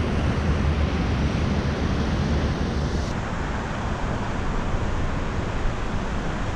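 Steady rushing water, with wind buffeting the microphone.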